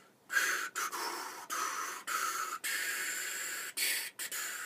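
A person blowing a relaxed airstream through the lips with no instrument, tonguing it into a series of whooshing notes whose hissy pitch rises and falls as the tongue is raised and lowered, tracing a tune in the air: a trumpet wind-patterning exercise.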